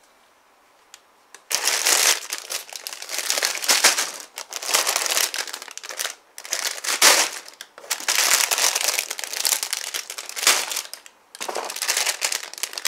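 Clear plastic bags of model-kit parts crinkling as hands handle them. It starts about a second and a half in and goes on in rustling bursts with a couple of short pauses.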